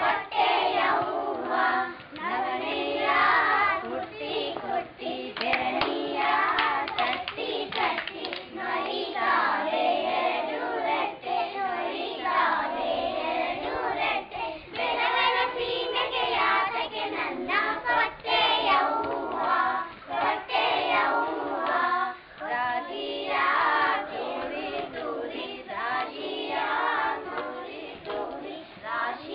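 A group of young children singing a song together, clapping their hands along with it.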